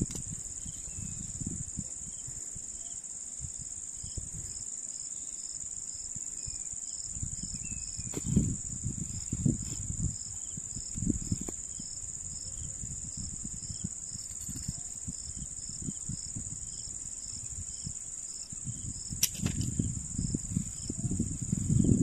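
Insects droning steadily, with a second insect chirping about twice a second, over uneven low rumbling on the microphone.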